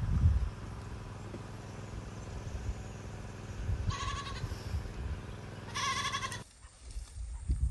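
A goat bleating twice, each call high and quavering, over a steady low hum that stops suddenly near the end, with a few low thumps.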